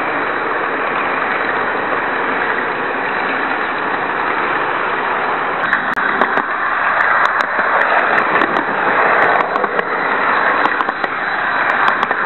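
Model train running on its track, picked up by a microcamera riding on board: a steady rushing noise. About six seconds in it grows louder, with scattered crackling clicks.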